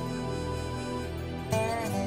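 Slow, soft instrumental music with held notes; a louder note comes in about one and a half seconds in.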